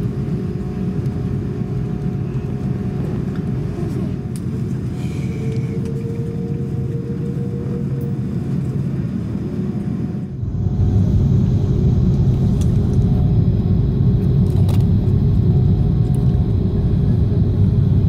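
Cabin noise of an Airbus A330-300 taxiing: a steady low rumble of its Rolls-Royce Trent 700 engines and rolling gear. About ten seconds in it drops for a moment, then comes back clearly louder and heavier.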